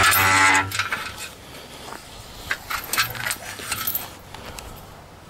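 Steel boom of a tractor field sprayer being unfolded by hand: a loud squeal from the boom's hinge for about the first second, then scattered metallic clicks and knocks as the boom section swings out.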